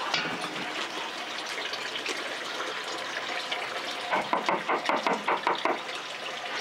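A quick run of about ten knocks on a wooden front door, lasting about a second and a half and starting about four seconds in, over a steady rushing hiss.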